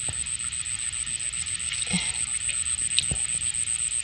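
A steady high hiss with a high-pitched, rapidly pulsing trill throughout, and a few soft knocks and water sounds from hands working in shallow muddy swamp water, at the start, about two seconds in and about three seconds in.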